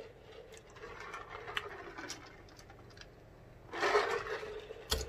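Faint close-miked mouth noises and small clicks from a person eating, with a louder stretch about four seconds in as a glass is lifted to drink.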